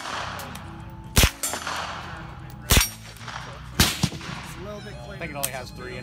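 Suppressed carbine firing three single shots, each a sharp report with a short ringing tail, spaced about a second and a half and then a second apart. Two fainter shots follow near the end.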